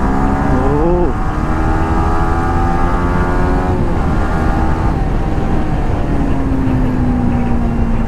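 Motorcycle engine under way with wind rumbling on the microphone. The engine note climbs sharply about a second in, then rises slowly as the bike accelerates. It drops off about four seconds in and settles into a steady, slowly falling note.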